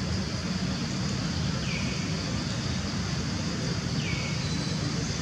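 Steady outdoor background noise with a low rumble. A short, high call slides down in pitch and levels off twice, about two seconds apart.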